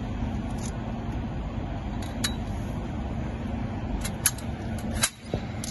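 A few sharp metallic clicks and clinks over a steady low rumble: one about two seconds in, then several more between four and five seconds. They come from the chain hooks and steel frame of a KänguruLifter manhole-cover lifter knocking against a metal grating manhole cover as it is gripped for lifting.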